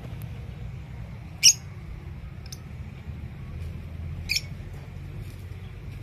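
Rose-ringed parakeet giving two short, shrill squawks, the first about a second and a half in and louder, the second about four seconds in, over a steady low rumble.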